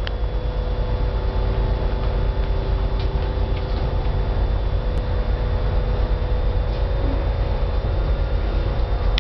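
Cabin noise inside a Breda articulated trolleybus: a steady low rumble with a constant hum and a faint high whine, and a few faint clicks.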